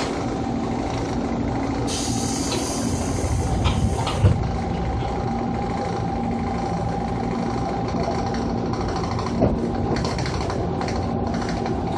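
Onboard running sound of a JR East 205 series electric train with outer-fan traction motors, pulling into a station: a steady rumble with a low hum and a higher whine. About two seconds in comes a burst of air hiss from the brakes that lasts about two seconds, and there are short knocks about four and nine seconds in.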